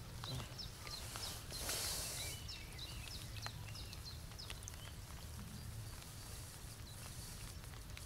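Small birds chirping and calling repeatedly in short, quick notes, over a steady low rumble, with a brief hiss about two seconds in.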